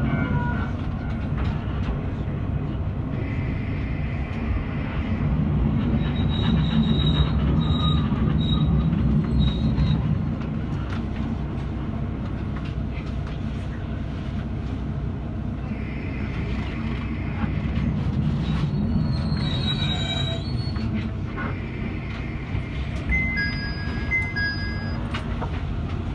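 Kanto Railway KiHa 2000 diesel railcar running slowly into a terminal platform: a steady low engine and running noise, broken by several spells of thin high squealing from the wheels or brakes as it draws in to stop at the end of the line.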